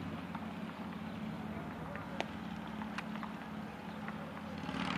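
Steady low hum of outdoor background noise with a few short, sharp knocks, the sharpest about two seconds in.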